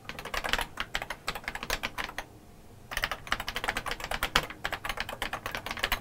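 Typing on a TRS-80 Model 4 keyboard: quick runs of key clicks, with a short pause a little past two seconds in.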